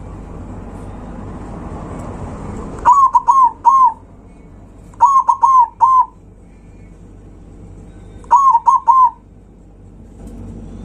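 Zebra dove (perkutut) cooing: three loud phrases of three or four short, quick notes each, a couple of seconds apart.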